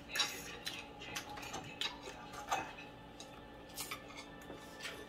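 Forks and spoons lightly clicking against ceramic plates and bowls while people eat, in scattered, irregular taps.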